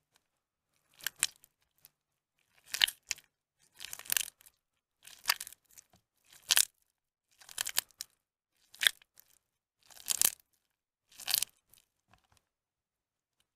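Soaked, mushy bar soap squeezed and crumbled by hand over a tub of soapy water: about nine separate crunching squeezes, roughly one a second.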